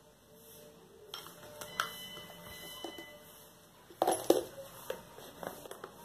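Bowls clinking and knocking on a glass tabletop as they are handled and set down. A few light clicks come first, then a louder cluster of clinks about four seconds in.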